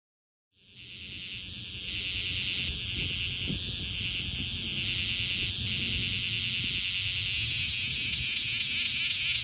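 Bear cicada (kumazemi, Cryptotympana facialis) singing close up: a loud, shrill buzz that starts about half a second in, swells over the first two seconds, and breaks into a quick pulsing rhythm near the end.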